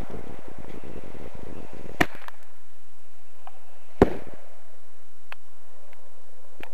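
Small mortar firing: a sharp bang about two seconds in and a louder bang about two seconds later, after a steady rushing noise that stops at the first bang.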